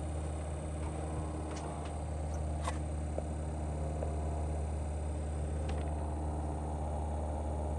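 Work van's engine idling steadily, a low even hum, with a few faint light clicks over it.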